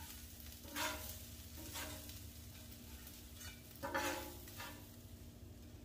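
Metal spatula scraping across the Blackstone griddle's steel cooktop, lifting smash burgers off, with faint sizzling of the patties. A few short scrapes, the loudest about four seconds in.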